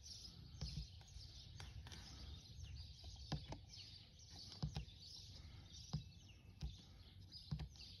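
Faint birds chirping, with a few sharp clicks of the keys on the furnace's Siemens LOGO! controller being pressed.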